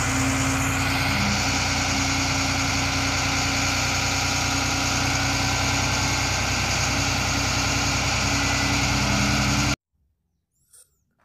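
Diesel engine of a Zoomlion truck crane idling steadily, cutting off suddenly near the end.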